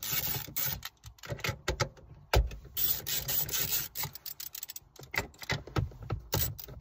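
Irregular clicks and clinks of hand tools, a 10 mm socket and extension, being handled and fitted.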